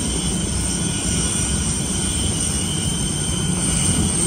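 Steady jet turbine noise on the airport ramp: a low rumble with a high, unchanging whine.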